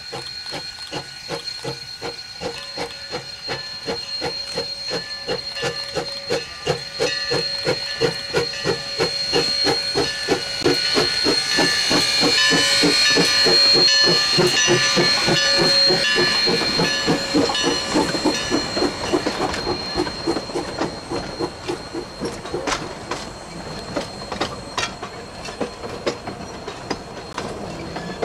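Steam locomotive working past at close range, its exhaust chuffing in an even beat with a steady hiss of steam, growing louder to a peak as the engine goes by about halfway through. The passenger cars follow, with their wheels clicking over the rail joints.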